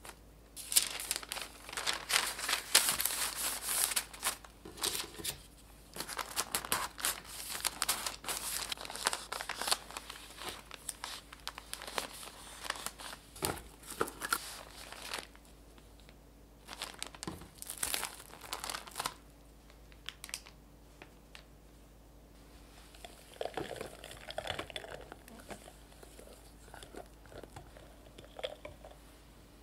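Parchment paper crinkling and rustling in repeated bursts as a sponge cake is rolled up in it and wrapped. About two-thirds of the way through this gives way to quieter scraping and handling sounds.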